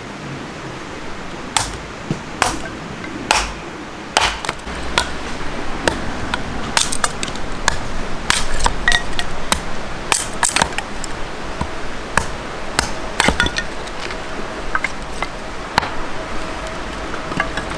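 Irregular sharp clicks, knocks and light clinks of hard objects being handled close by, a few a second at the busiest, with a faint steady tone in the second half.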